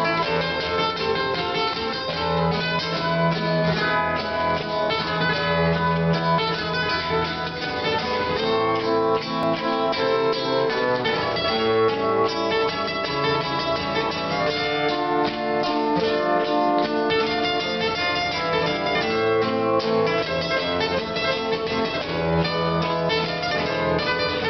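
Two acoustic guitars playing an instrumental introduction in Latin style, a quick picked melody over chords.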